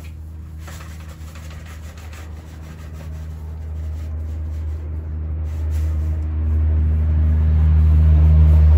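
A steady low rumble that grows gradually louder, with faint rustling over it near the start.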